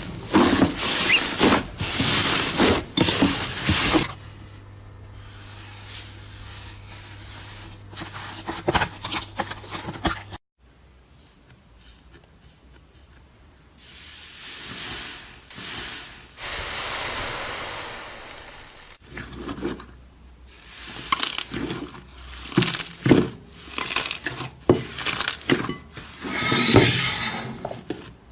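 Slime being squeezed, poked and stretched by hand, giving rapid sticky crackles and clicks. It comes in several separate clips, loud at the start and again over the last third, with quieter stretches between.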